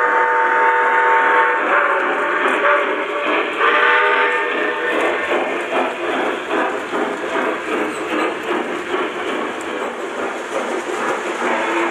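Lionel Empire State Express Hudson model steam locomotive blowing its whistle twice, a held blast at the start and another about four seconds in. Then the steady rumble of the passing train, with rapid clicking of wheels over the track.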